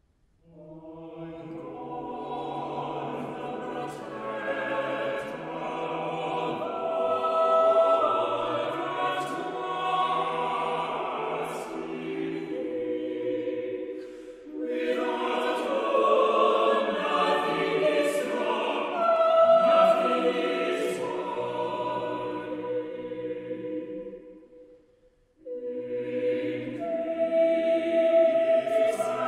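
Mixed church choir of men's and women's voices singing together in harmony in long phrases, breaking off briefly about halfway through and again near the end before going on.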